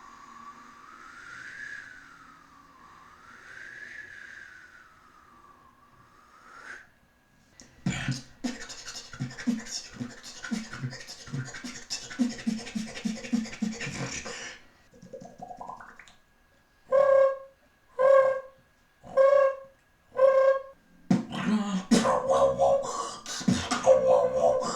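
A beatboxer making vocal sound effects one after another. First a thin wavering tone that rises and falls twice, then a fast beatbox rhythm. After a short rising glide come five short pitched calls about a second apart, and then more fast rhythm near the end.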